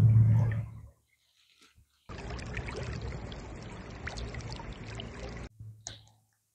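A hooked wide-mouthed chub (Opsariichthys) thrashing at the surface of a shallow stream on a tenkara line, a close, steady watery splashing that starts and cuts off abruptly. Before it, in the first second, there is a loud low hum.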